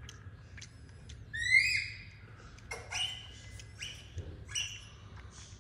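Infant macaque giving short, high-pitched squeaky calls while sucking on a milk bottle: about four squeals, the loudest one rising in pitch about a second and a half in.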